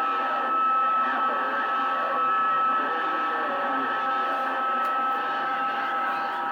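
CB radio receiving: hissy band noise with steady heterodyne whistles and a faint, garbled voice coming through the radio's speaker.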